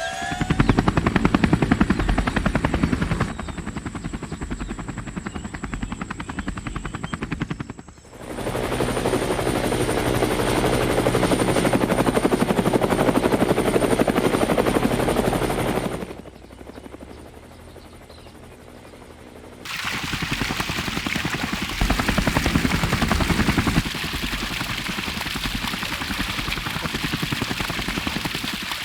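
A small electric motor running with a fast buzzing pulse, in several stretches that start and stop abruptly, one of them quieter.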